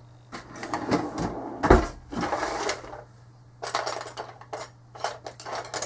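Small hard metal and plastic parts being handled on a workbench: clicks and clatter, with a heavier knock about two seconds in and a quicker run of clicks and rattles in the second half.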